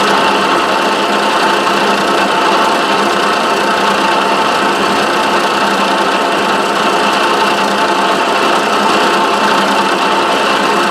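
Milling machine running steadily with a two-flute end mill cutting a pocket in Delrin plastic.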